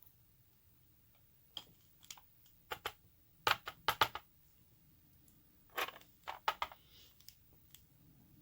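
Light metal clicks and taps as the pins and springs of an American 1105 padlock are worked out of the cylinder with tweezers. They come in scattered clusters, loudest about three and a half to four seconds in.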